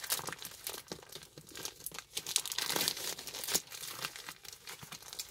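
Black plastic poly mailer bag crinkling and rustling in irregular bursts as it is handled and pulled at with the hands.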